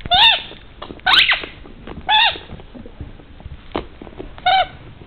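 Rubber squeaky hamburger dog toy squeaking four times as a dachshund bites it, each squeak short and rising then falling in pitch, with small knocks from the chewing in between.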